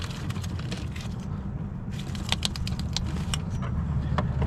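Light metallic clicks and clinks of parts and tools being handled, heard mostly in the middle, over a steady low rumble.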